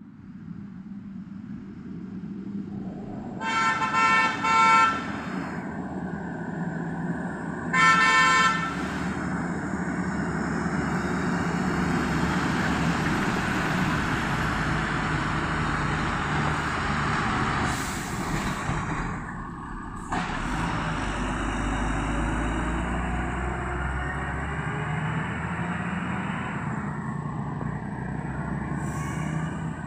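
A heavy transport truck's diesel engine labouring past, loudest in the middle. Its horn honks three times: two toots close together about four seconds in, and a third about eight seconds in.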